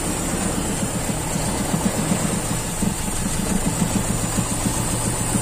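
Toyota Kijang Super's carbureted four-cylinder petrol engine idling with an uneven, limping beat. The mechanic puts the rough idle down to cylinder 4 not firing, its spark plug wet, and to false air leaking in through the vacuum lines.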